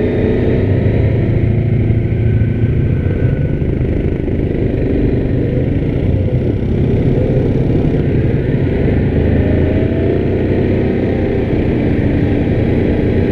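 2019 Yamaha Grizzly 700 ATV's single-cylinder four-stroke engine running steadily under the rider on a woods trail, its pitch wavering a little with the throttle.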